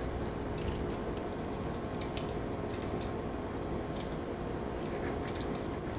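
Dried herbs crumbled and sprinkled by hand onto raw chicken skin, heard as a few faint soft ticks scattered over a steady low hum of room tone.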